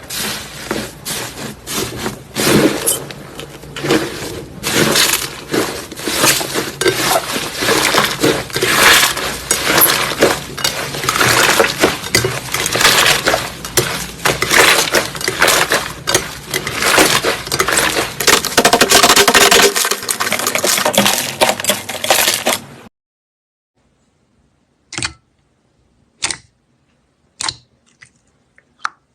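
Slime being squeezed and worked by hand: dense crackling and clicking that stops abruptly about two-thirds of the way in, followed by a few separate clicks.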